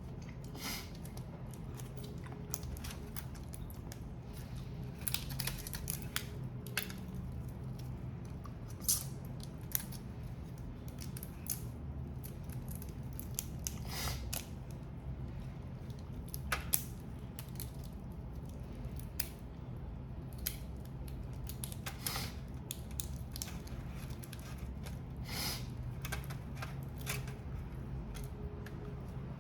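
Crab and prawn shells being cracked and cut apart while eating: irregular sharp clicks and snaps, a few seconds apart, over a low steady hum.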